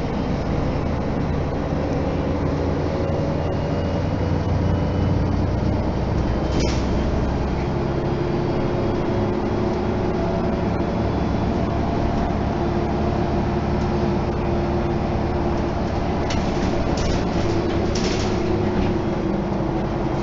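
Mercedes-Benz O 530 G Citaro articulated bus in motion, heard from inside the passenger cabin: a steady engine drone with a slowly shifting drivetrain whine. A few brief rattles come about a third of the way in and again near the end.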